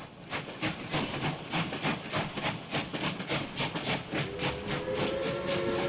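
Steam locomotive chuffing steadily at about five beats a second. About four seconds in, a whistle sounding several notes at once starts and holds.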